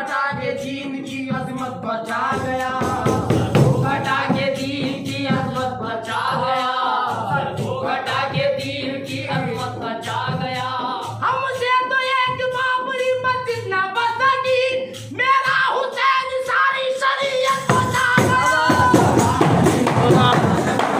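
Qawwali singing: a sung devotional vocal line with instrumental accompaniment and a steady percussive beat, the sound growing fuller a few seconds before the end.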